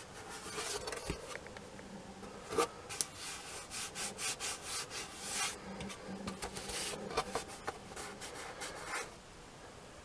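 Perforated back cover of an Ekco AD75 radio being handled and turned over by hand: quiet, irregular scraping and rubbing of fingers on the board.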